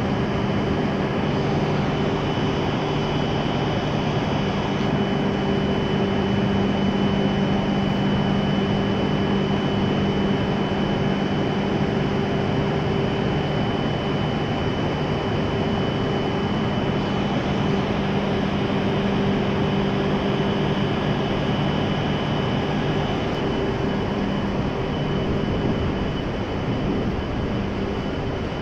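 E7 series Shinkansen train standing at the platform, its onboard equipment giving a steady hum of several held tones over an even rush of noise; one of the low tones drops out a little over twenty seconds in.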